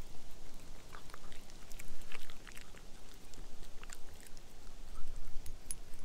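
A small long-haired dog eating scraps of trout off a wooden board, chewing with irregular soft clicks and ticks.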